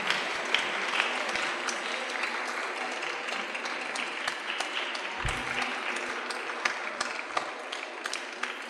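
Audience applauding, dense at first and slowly dying down, with a brief low thump about five seconds in.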